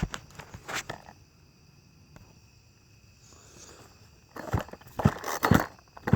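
Clicks and a few knocks from handling the saw and camera: a couple of light clicks near the start, quiet, then a run of four or so sharp knocks from about four and a half seconds in.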